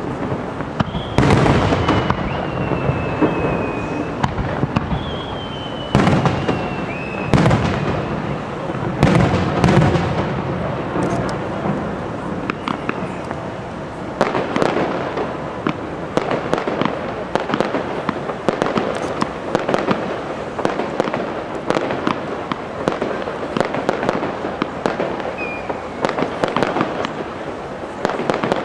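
Japanese aerial fireworks display: several heavy shell bursts in the first ten seconds, two of them with a whistle that slowly falls in pitch. From about halfway on come rapid, dense cracks of many small reports.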